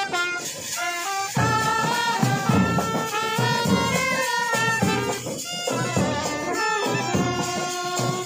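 Brass band playing a melody, with drum beats coming in after about a second.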